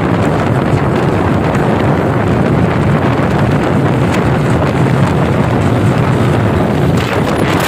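Wind rushing over the microphone of a motorcycle riding along at speed, with the bike's engine running underneath; steady throughout.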